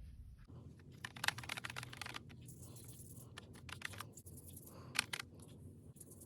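Watercolour paintbrush stroking across paper in short, faint, scratchy sideways strokes, with a slightly sharper stroke about five seconds in.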